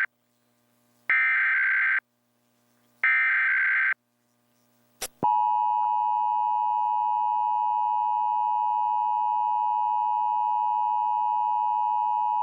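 Emergency Alert System test broadcast over TV. The last two of the SAME digital header's three raspy data bursts, each about a second long with a second between them, are followed by a click and then the steady two-tone EAS attention signal, which starts about five seconds in and holds.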